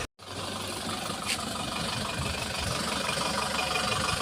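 Heavy diesel engine running steadily at idle.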